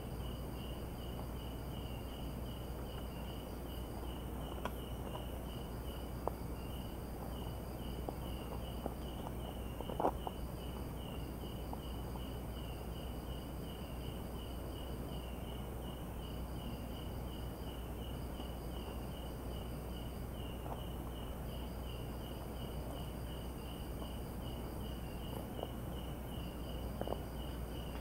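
Night insects calling in a forest: a steady high chirp pulsing about three times a second, with a higher trill coming and going over it in stretches of a few seconds. A few faint clicks stand out, the loudest about ten seconds in.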